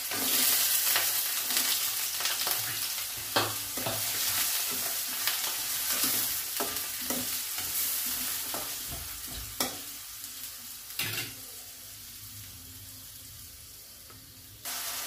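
Diced carrots sizzling in hot ghee in a stainless steel kadai, stirred with a spatula that scrapes and clicks against the pan a few times. The sizzle gradually dies down over the second half.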